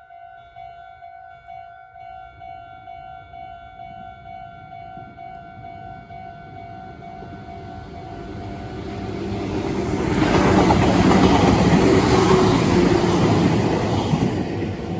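Japanese level-crossing alarm ringing in steady rapid strokes as a Meitetsu Nagoya Main Line train passes. The rumble of the wheels on the rails swells from about eight seconds in, is loudest between about ten and fourteen seconds and covers the bell, then begins to fade near the end.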